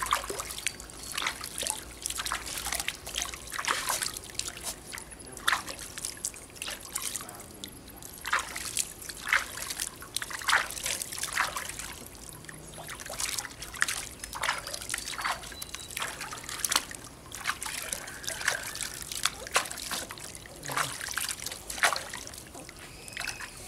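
Water splashing and trickling in a plastic basin as hands wash a puppy, scooping and rubbing water over its coat in irregular splashes. Near the end the puppy is lifted and water streams off it back into the basin.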